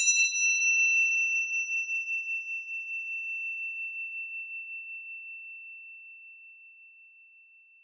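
A single high, bell-like metallic chime struck once. Its upper overtones die away within about a second, while the main tone rings on with a slight waver and slowly fades out over about eight seconds.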